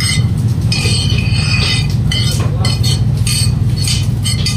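A steel spoon scraping cooked chopped vegetables off a plate into a stainless-steel bowl, with repeated short scrapes and clinks of metal, over a steady low background hum.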